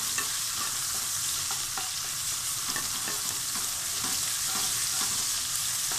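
Garlic frying in hot oil in a pan: a steady sizzle with a few faint clicks.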